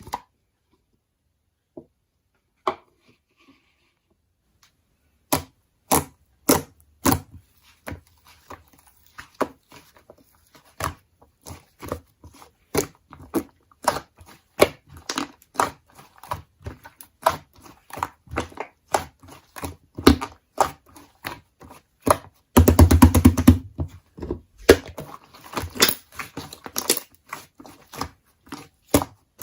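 Slime being squished and pressed by hand, making sharp clicks and pops. After a few isolated clicks, the pops come in an irregular run and thicken into a rapid crackling burst about three quarters of the way through.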